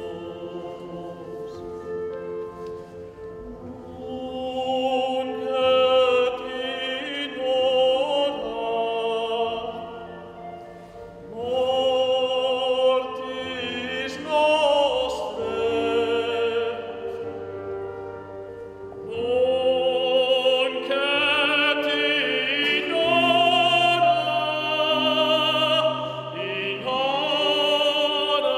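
A male solo singer sings a classical sacred piece in full operatic voice with wide vibrato, in long phrases with short breaks between them. Steady low sustained notes from the instrumental accompaniment play underneath.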